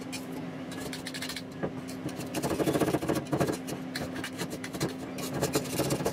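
A utensil scraping down the sides of a stainless steel mixing bowl through a thick yogurt and protein-powder mixture, in quick, uneven strokes that grow louder around the middle. A steady low hum runs underneath.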